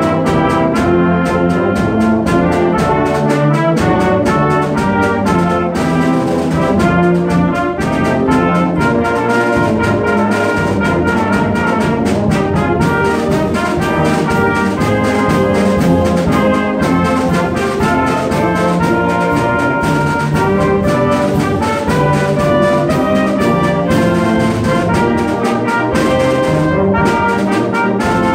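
Student wind ensemble playing a piece: trumpets, trombones and clarinets together with drums and timpani, loud and steady throughout.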